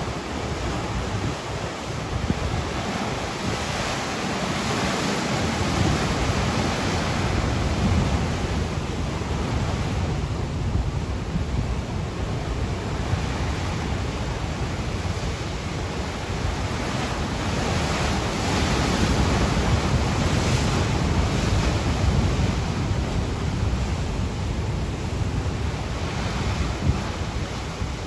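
Ocean waves breaking and washing on a beach: a continuous rush of surf that swells louder and eases off again as each set of waves comes in.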